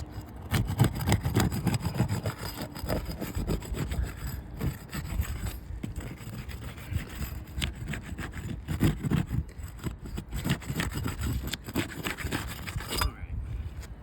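A roof snake, a shingle-lifting tool, worked under asphalt shingles to break their seal and lift them: repeated rough scraping and rubbing strokes against the shingles, stopping about a second before the end.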